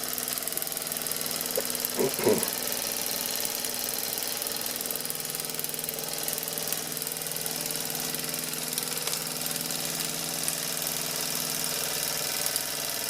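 Doll 320/3 toy upright steam engine running steadily and smoothly under steam, fired by a ceramic gas burner.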